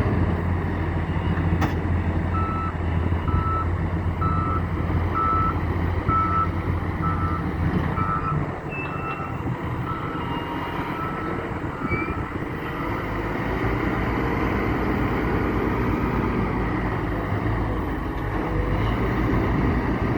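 Reversing alarm on heavy construction machinery beeping at one pitch, a little over once a second, over a running diesel engine. The beeping stops about 13 seconds in while the engine runs on.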